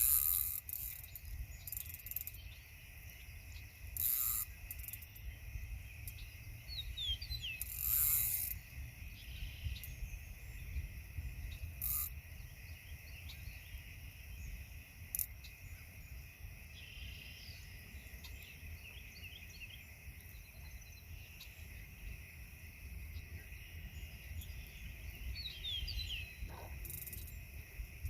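Outdoor pond ambience: a steady low rumble of wind on the microphone, bird chirps twice, and a few short rustles and knocks of handling along the way.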